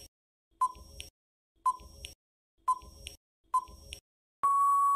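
Countdown timer sound effect: short electronic beeps about once a second, four of them, then a longer steady beep starting near the end, signalling that the time to answer is up.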